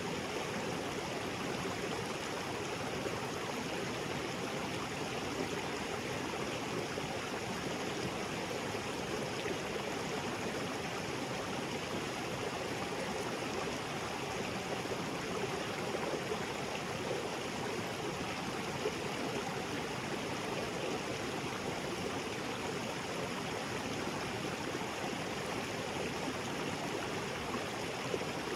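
Small waterfall splashing into a rocky creek, a steady even rush of falling and flowing water.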